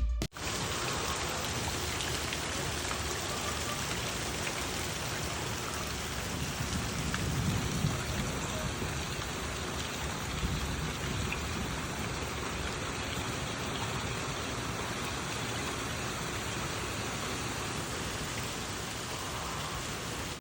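Steady rain falling, an even hiss with no rhythm or pitch.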